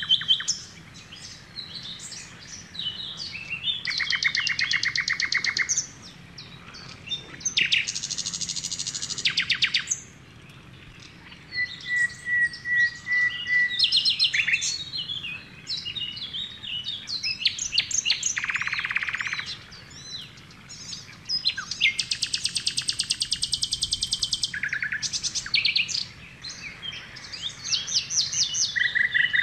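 Wild birds chirping and calling, several at once. Short chirps are mixed with rapid trills of a second or two each that come and go throughout.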